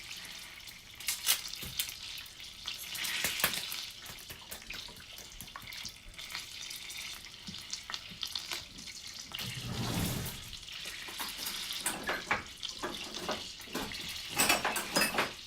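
Hot sauce being poured into melted butter in a hot pan, sizzling with a steady hiss and small crackles.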